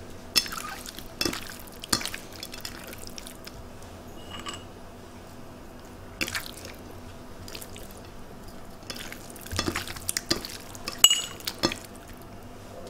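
Wet raw lamb pieces being handled and turned by hand on a plate while they are salted: scattered short wet squelches, taps and drips, with a cluster near the end.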